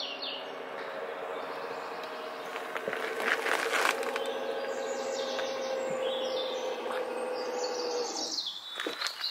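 Audi Q7's electric swivelling tow bar retracting: its motor runs with a steady hum as the tow ball swings back up under the bumper, and stops about eight seconds in. Birds chirp in the background.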